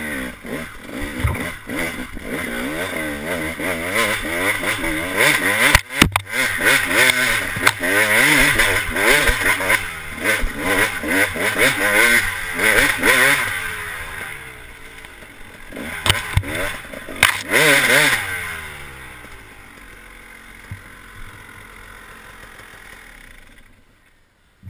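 KTM 300 two-stroke dirt bike engine revving up and down as the bike is ridden over rough trail, with knocks and rattles from the bike over rocks and roots. About nineteen seconds in it drops to a lower, steady running note and fades out near the end.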